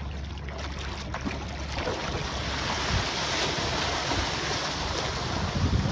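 Wind on the microphone and rushing, splashing water: a steady hiss that swells about two seconds in as a kiteboarder rises onto the board and planes through the water, throwing spray.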